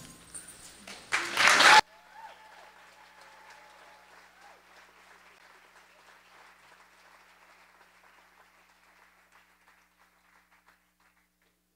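Audience applauding at the end of a song: loud for about the first two seconds, then suddenly much fainter, thinning out to a few scattered claps before stopping near the end.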